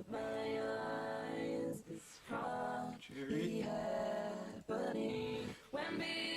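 Background music: a slow song with long held sung notes in phrases broken by short pauses.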